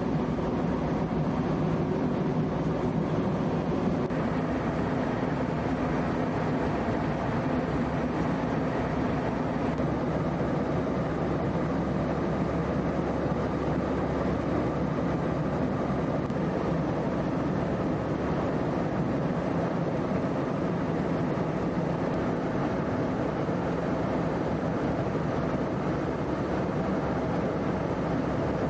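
Steady drone of jet aircraft engines and airflow heard from inside a plane's cabin in flight, with a constant low hum of several steady tones.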